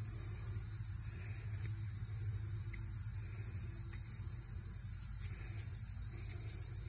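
Steady, high-pitched chorus of crickets over a low, steady rumble.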